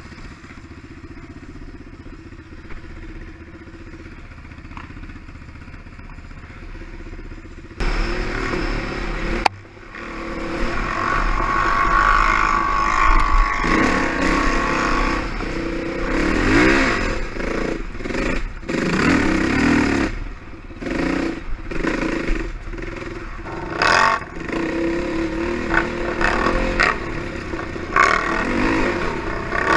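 ATV engine running steadily and quietly, then from about eight seconds in, after a sudden jump in loudness, revving up and down as the quad rides a rough forest trail, with knocks and rattles.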